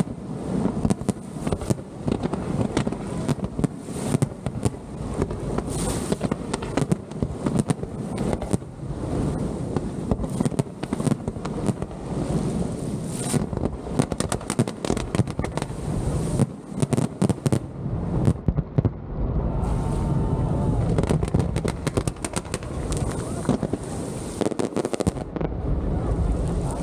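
Pirotecnia Vulcano aerial fireworks display: a continuous rapid barrage of bangs and crackles, with a few whistling shells in the latter part.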